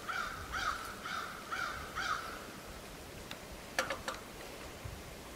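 A bird calling: about five repeated calls, each about half a second apart, that stop a little after two seconds in. Near four seconds in come two sharp clicks from hands fitting small parts on the outboard motor's ignition plate.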